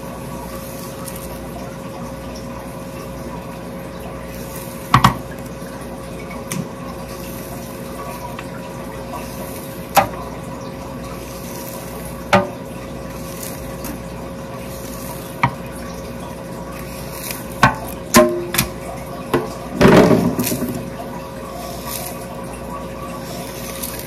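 Water running steadily into a stainless steel sink, with a steady hum underneath. Sharp clicks and knocks come every few seconds, the loudest a cluster about twenty seconds in.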